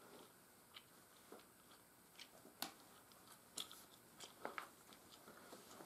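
Near silence, broken by about eight faint, short clicks and rustles of buckskin lacing being handled and pulled, the clearest about two and a half seconds in.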